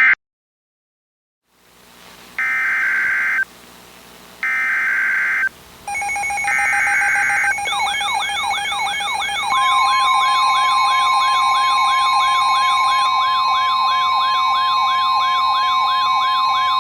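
Emergency Alert System SAME header: three one-second bursts of digital data tones, followed by the alert's attention signal. The attention signal is a wavering siren-like tone sweeping about three times a second, joined nearly ten seconds in by a steady high tone, the 1050 Hz weather radio alarm.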